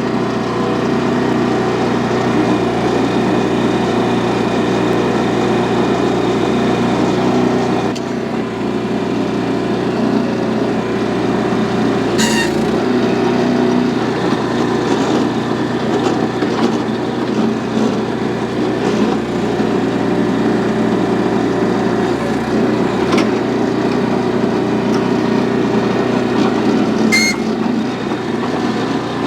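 The small gasoline engine of a Central Machinery towable backhoe running steadily under hydraulic load while the bucket digs hard, rocky soil, with two sharp knocks, one partway through and one near the end.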